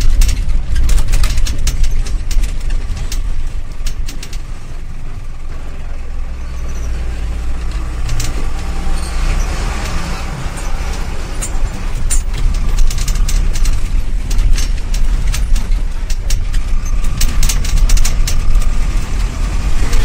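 Bus running on a rough road, heard from inside: a low engine drone with rattles and knocks from the body, as it passes close beside trucks. The noise eases for a few seconds after the start and grows louder again in the second half.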